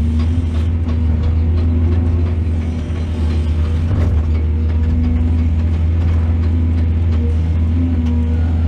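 Excavator's diesel engine running steadily with a deep drone, with a short knock about four seconds in.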